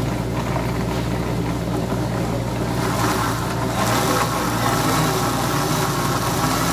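Electric mixer grinder running, its motor whirring steadily as it grinds boiled tomatoes, onion, garlic and dried red chillies into chutney. About three seconds in the sound grows louder and rougher.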